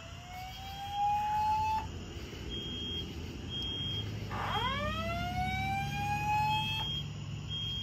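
Fire alarm voice-evacuation speaker sounding the whoop tone: a rising sweep that ends about two seconds in, then after a gap a second rising sweep from about halfway through. Between and after the sweeps, a short high beep repeats about once a second.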